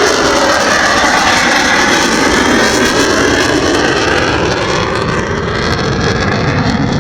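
F-16 Fighting Falcon's jet engine, a loud, steady roar as the fighter flies its demonstration, the hiss easing slightly near the end.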